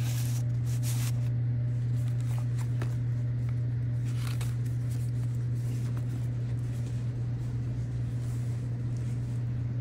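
Paper journal pages being turned and handled, with a few soft rustles of paper and card, over a steady low hum.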